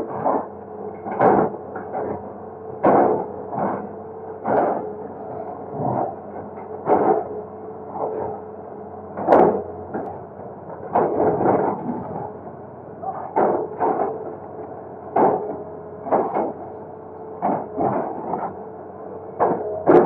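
Excavator running steadily while it breaks up a concrete bridge, with irregular knocks and scrapes about once a second as the bucket works the structure.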